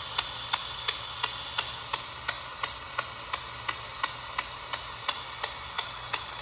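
PSB7-Pro spirit box sweeping through radio frequencies: steady hissing static broken by an even click about three times a second as it jumps from station to station.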